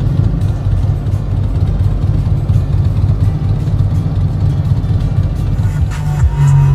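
Harley-Davidson V-twin motorcycle idling close by with a deep, uneven low rumble.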